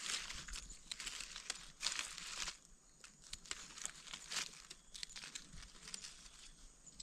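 Dry leaf litter rustling and crinkling in short irregular bursts as gloved hands dig through it with a knife to pick small wild mushrooms, with a quieter pause about three seconds in.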